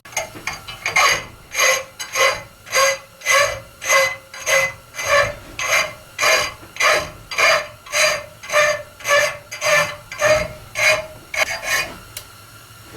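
Hand file rasping on a mild-steel forging in steady back-and-forth strokes, a little under two a second, each with a faint ring from the steel; the strokes stop shortly before the end. It is filing out a forging crack down to sound metal before welding.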